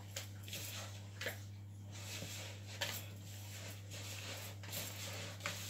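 Faint squishing and rubbing of hands working soft pumpkin scone dough together in a plastic mixing bowl, with a couple of light knocks, over a steady low hum.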